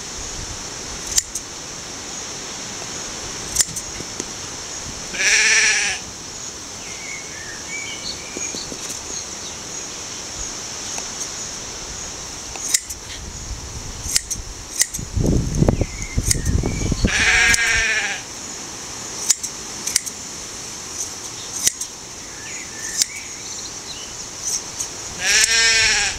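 Shetland sheep bleating three times, each call about a second long with a wavering pitch. Between the calls, hand blade shears snip through the fleece in sharp, scattered clicks.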